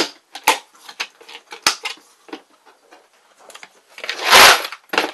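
Plastic ammo cans being handled in a plastic storage tote: a latch clicks shut at the start, followed by several light plastic clicks and knocks. About four seconds in comes a louder half-second scrape as a can is slid out by its handle from among the others, then one more click.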